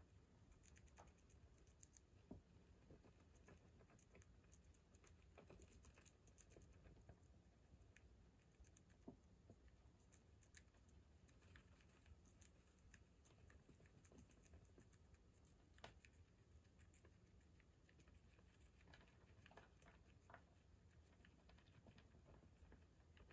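Near silence with faint, irregular tiny clicks: a baby hamster nibbling a piece of cabbage in a person's palm.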